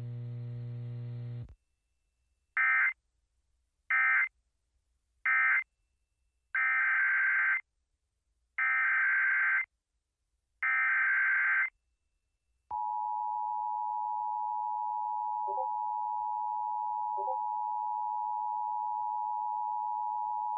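Emergency Alert System data bursts and attention signal: three short bursts of warbling digital tone, then three longer one-second bursts, each a set of three, marking the end of one alert and the header of the next. About halfway through, the steady two-tone EAS attention signal comes on and holds, announcing a new alert.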